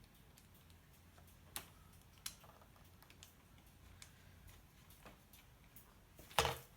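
Light, scattered clicks and taps of small clamp hardware being handled during a fitting, sharpest about a second and a half in and just after two seconds, with one louder knock near the end.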